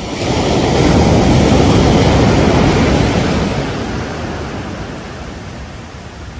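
Ocean wave breaking on the beach: a loud crash about half a second in, a wash that fades over the next few seconds, and the next wave starting to build near the end.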